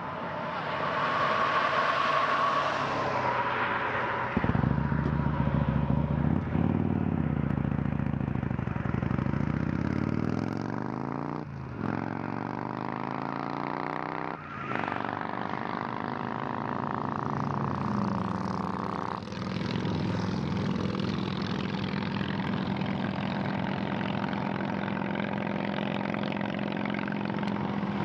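Motorcycle engine pulling through the gears, its pitch climbing and then dropping at each shift, a few shifts in the first twenty seconds; it then holds a steady pitch at cruising speed.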